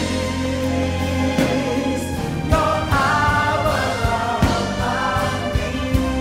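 Live gospel song: a woman sings the lead line over backing singers, bass guitar and drums. The bass holds a long low note at the start, and the lead vocal comes in about two and a half seconds in.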